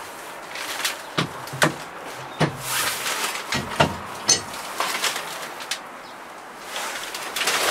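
Irregular light knocks and clicks, about nine of them, with brief rustling in between: handling noise as a person moves about inside a backhoe loader's cab.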